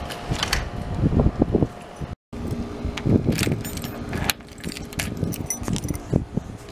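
A bunch of keys jangling, with metallic clicks as a key is worked into a doorknob lock.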